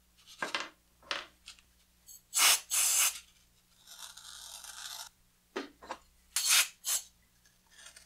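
Countersink bit turned by hand in the drilled holes of carved climbing-hold shapes, scraping out the hole edges in a series of short rasping strokes, the loudest about two and a half seconds in and again near the end.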